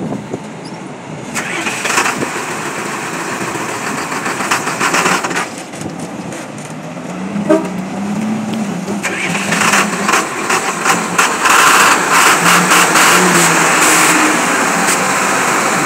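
Heavy truck's diesel engine running as a loaded cabover truck pulls out and drives off, its note rising and falling from about seven seconds in, with a short sharp sound midway.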